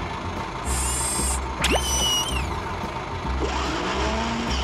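Cartoon sound effects for an animated excavator over background music with a steady bass pulse: a short ratcheting mechanical clatter about a second in, then a whistle-like tone that rises quickly and holds for under a second.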